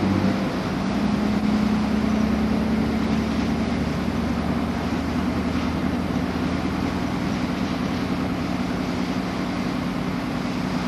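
Pair of British Rail Class 56 diesel-electric locomotives running light, their Ruston-Paxman 16-cylinder diesel engines giving a steady low drone. The engine note shifts about half a second in, then holds steady.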